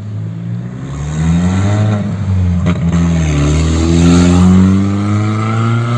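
Renault Fluence 2.0 four-cylinder petrol engine being revved through an exhaust fitted with an electric exhaust cutout (diffuser). The revs climb about a second in, dip near three seconds, then climb again and hold high.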